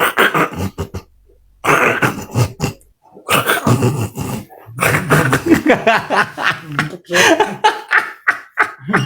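A man snoring loudly in his sleep, in ragged throaty bursts with a short break about a second in.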